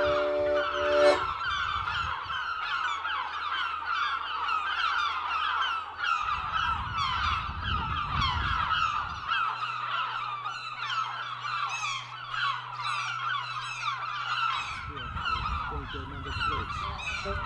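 A large flock of birds calling all at once: a dense, unbroken chorus of short, harsh, downward-sliding calls. Low rumbles come now and then underneath.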